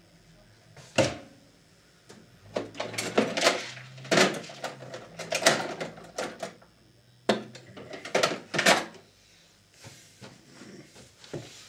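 A run of irregular knocks and clatter from hard objects being handled, moved and set down, with a sharp knock about a second in and denser clattering in the middle.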